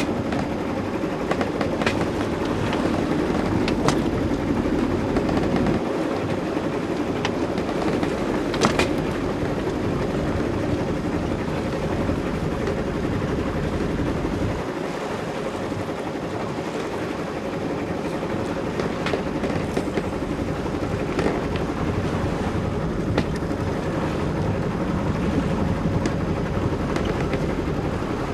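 Steady rush of wind and water around a sailing yacht under way, with a faint steady hum and a few sharp clicks.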